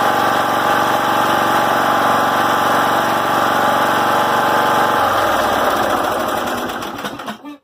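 Briggs & Stratton Intek 17 hp engine of a John Deere L100 riding mower running steadily. About five seconds in it is switched off and winds down to a stop just before the end.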